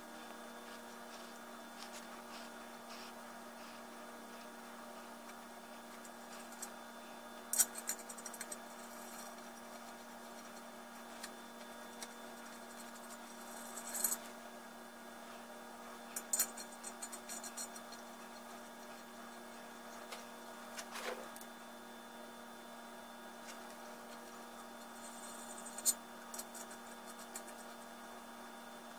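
Scattered small metallic clicks and clinks, about five over the stretch, as parts and hand tools are handled inside a bare cast-iron 7.3 Powerstroke diesel block, over a steady low hum.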